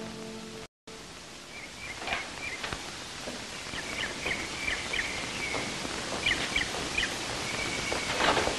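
Outdoor ambience of small birds chirping in short, repeated calls over a steady hiss, with a few soft knocks.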